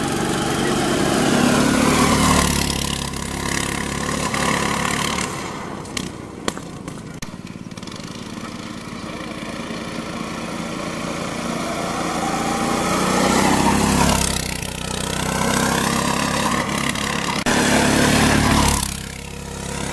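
Small go-kart engines running at speed, loud as karts pass close by about two seconds in, around fourteen seconds and again near the end. The pitch drops as each one goes past, and the engines fade to a more distant drone between passes.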